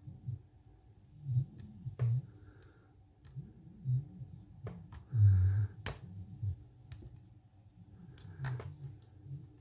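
Lock pick and tension wrench working a 7-pin high-security pin-tumbler lock: sharp, irregular metallic clicks as the pins are probed. Dull low bumps from handling the lock come in between, the loudest about five seconds in.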